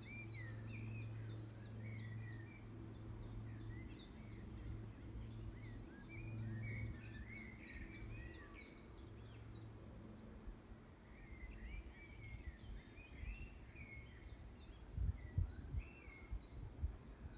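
Wild birds singing, with short chirps and warbling phrases scattered throughout, over a faint steady low drone that fades out about two-thirds of the way through. Wind buffets the microphone briefly near the end.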